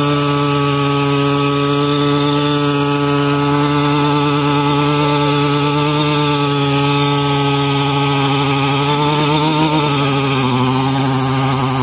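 A small engine running steadily at an even speed, its pitch dropping slightly about ten seconds in.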